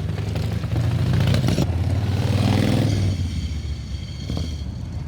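A car engine rumbling as the car drives past, loudest about two and a half seconds in and then fading, over a low background of other engines running.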